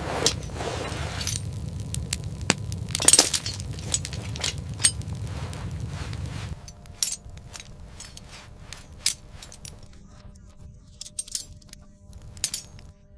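A string of sharp clinks and clicks over a low rumble. The rumble cuts off suddenly about six and a half seconds in, leaving fainter scattered clicks.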